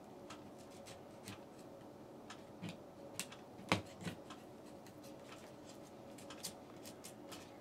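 Faint, irregular clicks and scrapes of a screwdriver tip picking and tearing wallpaper away from the edge of a socket back box.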